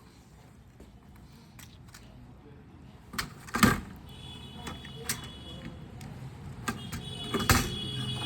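Hands working on an opened TV's circuit boards and cable connectors: scattered light clicks and rustles, with two louder knocks about three and a half seconds in and near the end.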